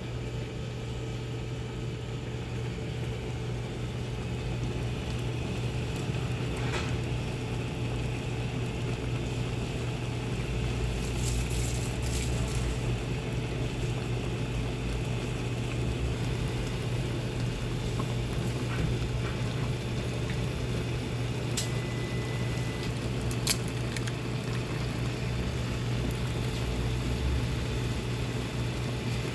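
Automated induction ramen cooker heating a paper bowl of instant ramen: a steady low electrical hum with the broth boiling. A few sharp clicks, the loudest about three-quarters of the way through.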